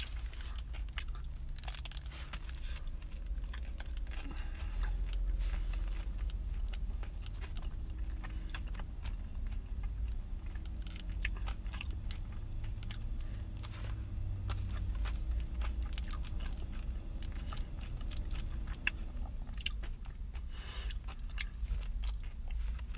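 Close chewing and crunching of a chocolate-coated ice cream bar with a crunchy topping: irregular crisp crackles over a steady low rumble.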